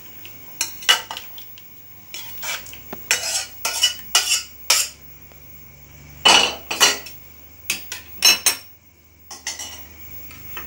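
A steel spoon scraping and clinking against a steel pan and a glass serving bowl as thick curry is scooped out: a dozen or so irregular sharp clinks and scrapes.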